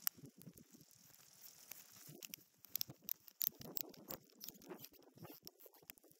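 Snowboard bindings being strapped in by hand: irregular sharp clicks and scrapes from the ratchet straps and buckles, with scratchy rustling.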